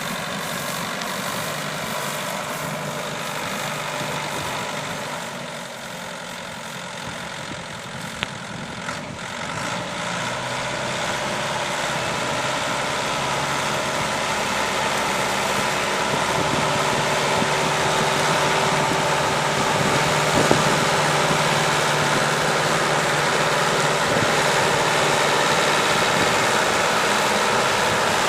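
Engine of a mini hay baler rig running steadily while it bales wheat straw. It grows louder about a third of the way in and holds there, with a couple of single sharp knocks from the machinery.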